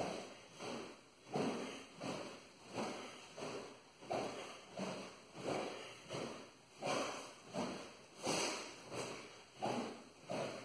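Two-handed sword blade swishing through the air in quick repeated cuts, a steady rhythm of about three swishes every two seconds.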